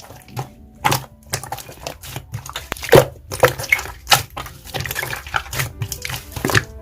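Slime mixed with snow clay being squished and folded by hand, giving a dense, irregular run of crackling clicks and pops.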